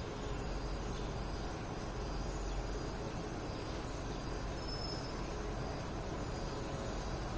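Steady outdoor background: a low rumble and hiss, with faint high chirps repeating about once a second.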